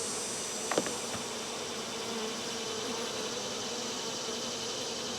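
Honey bees buzzing around an open hive: a steady drone. A single brief knock about a second in.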